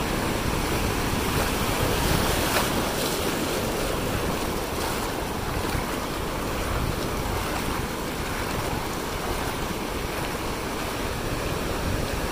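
Sea surf breaking and washing up the beach in a steady rush, with wind rumbling on the microphone.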